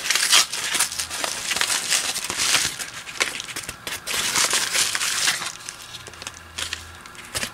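Padded paper mailer crinkling and rustling in irregular bursts as it is handled and opened by hand, fainter in the last couple of seconds.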